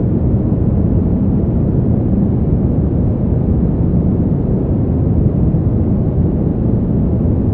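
Steady deep brown noise: an even, unchanging rumble-like hiss weighted to the low end, with little above the midrange.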